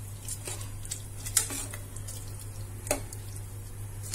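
A spoon stirring rice, vegetables and water in a steel pressure cooker, with a few scrapes and knocks against the side of the pot.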